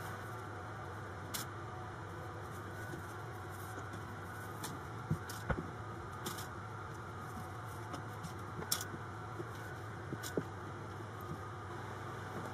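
Soft rustling of cotton fabric and tape being handled and pinned, with a few faint scattered clicks, over a steady low hum.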